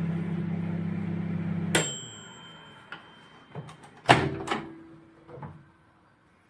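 Sharp R20DKM microwave oven humming as it runs, then stopping with a single ringing ding of its end-of-cycle bell. A few clicks and a louder clunk follow as the door is handled.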